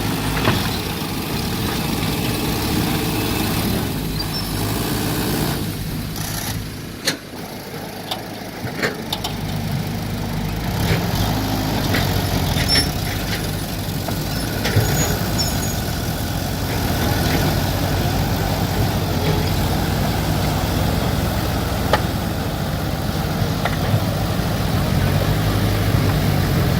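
Mini excavator engine running steadily under digging work, with scattered sharp clicks and knocks. The engine sound drops away for a couple of seconds about a quarter of the way in, then picks back up.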